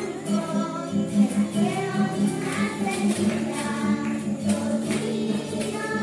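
A group of children singing a song together, accompanied by a strummed acoustic guitar keeping a steady beat.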